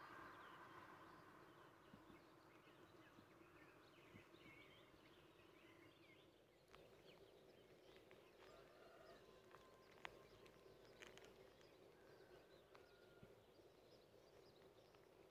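Near silence: faint outdoor ambience with scattered faint bird chirps and a few soft clicks.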